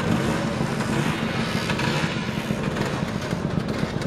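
Several motor scooter engines, Vespas and Lambrettas, running together in a steady mixed hum, with no single event standing out.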